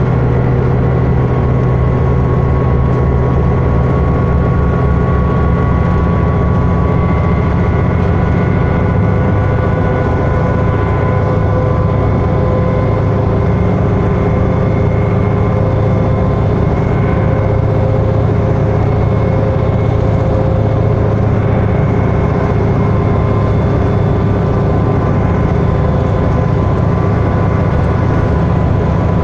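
A 2011 New Flyer D60LFR articulated bus's Cummins ISL9 diesel engine running steadily at freeway speed, heard inside the cabin: a loud low drone with several steady whining tones above it and road noise. The engine note drops slightly about seven seconds in.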